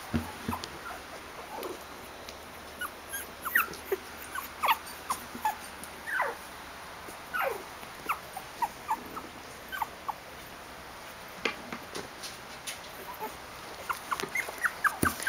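Sixteen-day-old cocker spaniel puppies squeaking and whimpering. Short high squeaks are scattered throughout, with two longer cries falling in pitch about six and seven and a half seconds in.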